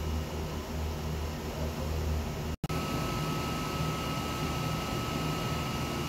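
Steady low machine hum with a faint high whine, cut off for a moment about two and a half seconds in.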